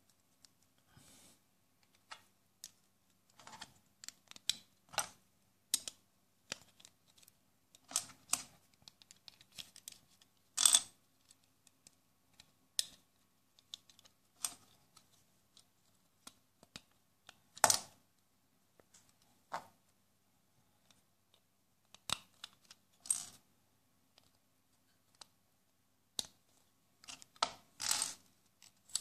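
Plastic Lego and Mega Bloks pieces clicking and rattling as they are handled and pressed together. The clicks come at an irregular pace, with a few louder snaps.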